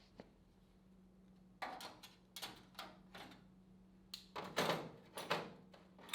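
An irregular run of short knocks and scrapes, about a dozen over a few seconds, over a steady low hum.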